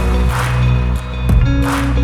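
Background music: held chords over low bass notes, with a soft swishing percussion hit about every second and a half.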